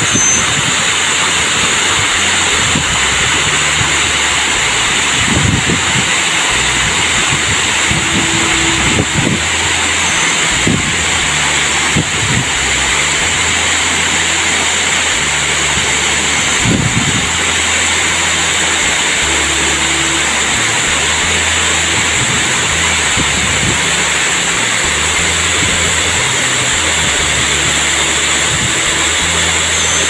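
Waterfall pouring: a loud, steady rush of falling water, with a few low bumps now and then.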